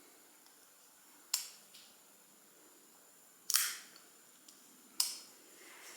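Kershaw Skyline flipper knife being flicked open and closed, its blade snapping into place with three sharp clicks about a second and a half to two seconds apart, plus a few faint ticks between them.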